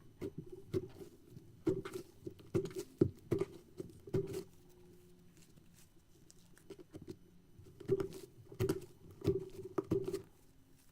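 Slime being handled, making quick runs of small wet clicks and pops: one run in the first four seconds, a quieter stretch in the middle, then another run about eight seconds in.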